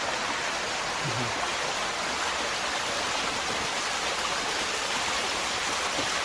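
Small waterfall splashing down a rock face: a steady rushing of falling water.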